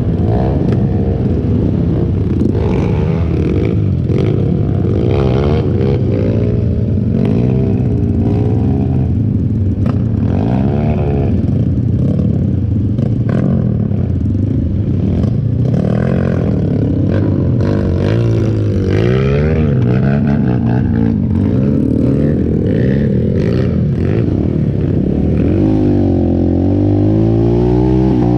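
Motorcycle engine running under load, its pitch rising and falling again and again as the throttle is opened and closed, with occasional knocks over a rough surface.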